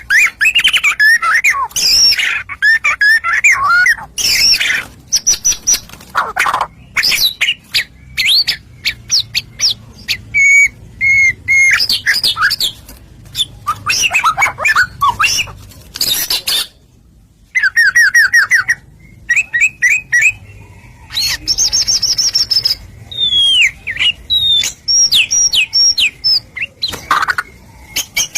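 Songbirds singing a fast, varied run of chirps, rapid trills and whistled notes, loud throughout and broken by abrupt cuts, with one short near-silent gap about two-thirds of the way through. It is a spliced birdsong lure track, played to provoke caged songbirds into singing back.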